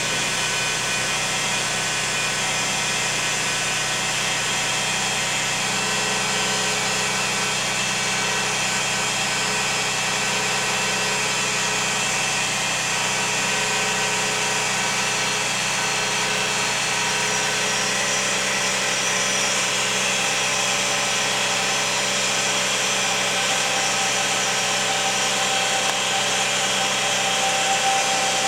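2001 Lexus RX300 running steadily with a whine: several steady tones over a constant mechanical hum. One higher tone grows stronger near the end.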